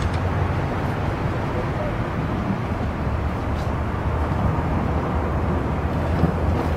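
Parked coach's engine idling, a steady low rumble.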